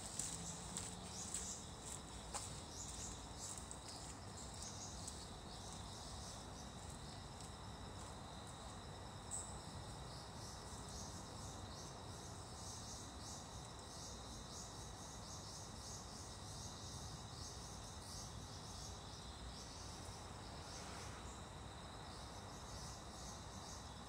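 Night insects chirping steadily in fast, repeating high-pitched pulses, faint, over a low steady background noise. A few faint clicks sound in the first couple of seconds.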